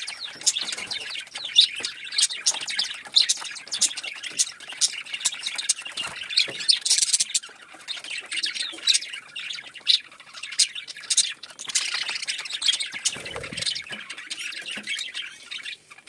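A flock of budgerigars chattering: a dense, continuous stream of short chirps and squawks.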